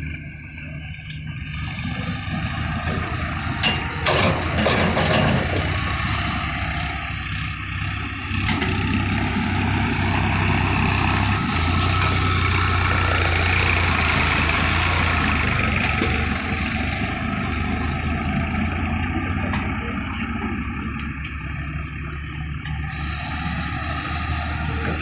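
Diesel engine of heavy earthmoving machinery running, growing louder under load for a few seconds in the middle, with knocks and scraping about four seconds in.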